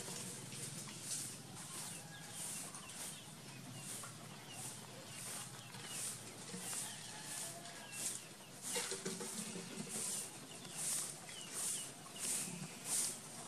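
Farmyard ambience: chickens clucking a few times, the clearest calls about nine seconds in and near the end, over a steady run of short high chirps from small birds, about one to two a second.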